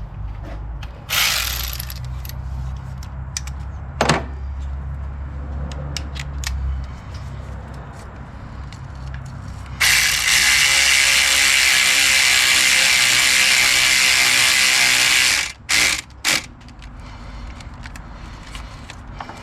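Ratchet wrench clicking rapidly for about five seconds, running in the bolts of a new intake manifold runner control valve, with scattered tool clicks and a knock earlier.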